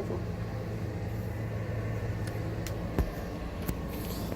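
A steady low machine hum, with a few light clicks and one louder knock about three seconds in.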